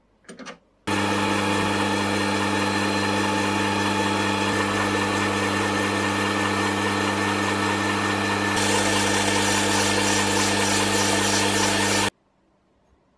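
Small metal lathe running at a steady speed with a steady hum, while abrasive mesh and then abrasive paper are held against a spinning brass part; the hiss brightens a little past halfway. It starts abruptly about a second in, after a brief handling noise, and cuts off abruptly near the end.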